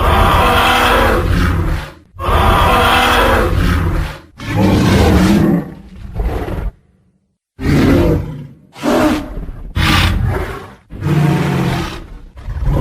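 Tyrannosaurus rex roar sound effects: a run of loud, deep roars and growls, each one to two seconds long, with a brief silence about seven seconds in.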